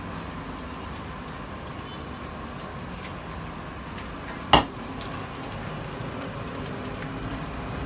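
Kitchen dish handling: one sharp clatter about halfway through as a dish knocks against the counter, with a couple of faint clinks before it, over a steady low hiss.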